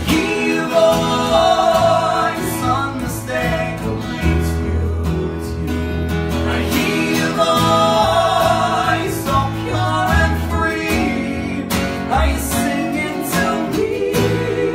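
Live acoustic band playing: a woman singing lead with men's voices joining in, over a strummed acoustic guitar and a plucked upright bass.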